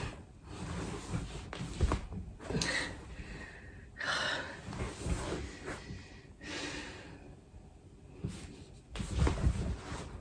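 A man breathing hard and gasping with effort through sit-ups, in several heavy breaths of a second or so each. A couple of dull thumps, one about two seconds in and one near the end, come as his body goes back down onto the wooden floor.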